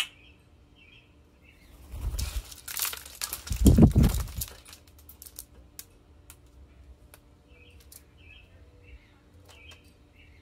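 A common grackle's wings flapping as it lands on a hanging plastic platform feeder, with a heavy thump near the middle. Then come scattered sharp clicks as it pecks at the sunflower seeds on the plastic tray. Small birds chirp briefly in the background.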